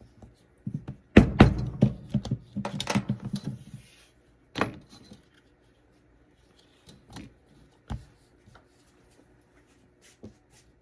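A quick run of sharp knocks as a hole is punched in a thin leather strap, with the metal sleigh bells riveted to the strap jingling. Then a few single knocks and taps spaced a second or more apart.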